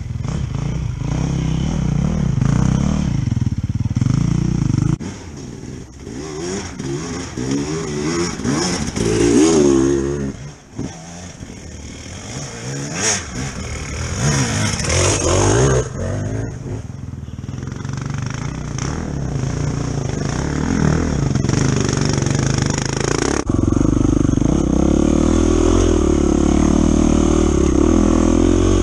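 Enduro dirt bike engines: one idling for the first few seconds, then another bike revving up and down as it climbs the trail toward it, rising and falling in pitch. About two-thirds of the way in, the sound switches abruptly to a steady, loud engine note as the nearby bike rides off under throttle.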